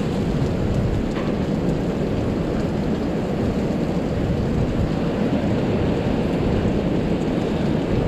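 Tropical Storm Pabuk's wind buffeting the microphone along with falling rain: a steady, unbroken rush with a heavy low rumble.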